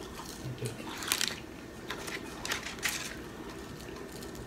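Close-up eating sounds of a person chewing french fries and licking her fingers: a few short, sharp smacking and crunching sounds, the strongest about a second in and two more near the three-second mark.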